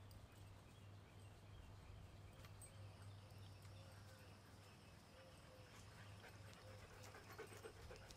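Near silence: a faint steady low hum, with faint sounds of two huskies and a Doberman moving about on grass, small rustles and ticks growing more frequent near the end.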